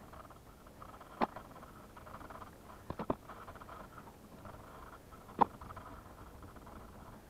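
Manual caulking gun pressing out silicone sealant along a wall joint: a few sharp clicks from the trigger and plunger mechanism, about two seconds apart, with two coming close together. The loudest click is near the end.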